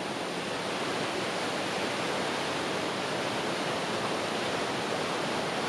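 Small waterfall and rapids running fast over rocks, full with monsoon water: a steady, even rush of falling and splashing water.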